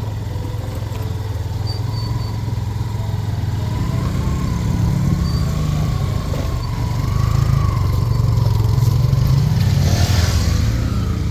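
Small motorcycle engine running steadily while riding, its pitch drifting slightly up and down with speed, over a low rumble.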